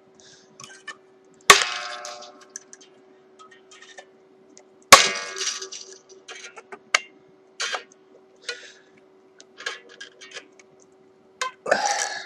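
Strings on a Jaguar electric guitar being cut under tension with snips: two loud metallic snaps about three and a half seconds apart, each followed by a short ring from the released string, with smaller clicks of the snips and handling in between.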